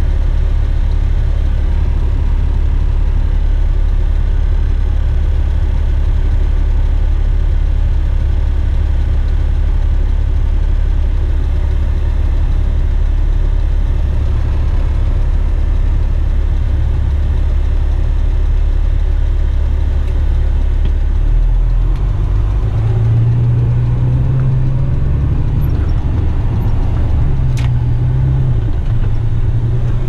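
Western Star tipper truck's diesel engine idling steadily, heard from inside the cab. About two-thirds of the way through, the engine note starts rising and falling as the truck moves off.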